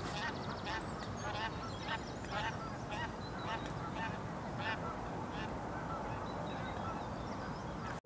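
Canada goose honking repeatedly, about two honks a second, over a steady background hiss; the honks thin out after about six seconds.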